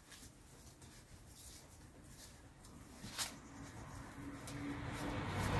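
Faint clicks of hand-tool work on the engine in its bay, with one light knock about three seconds in; a rustling noise builds near the end.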